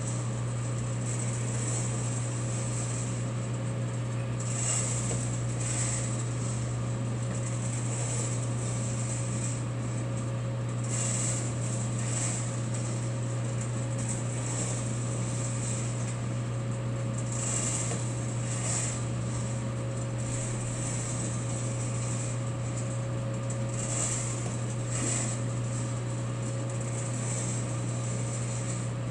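ASRw-01 hot-air sample coffee roaster running with its fan on the third speed and its roasting cage turning: a steady motor hum under a thin constant tone, with brief airy hisses swelling up every second or two.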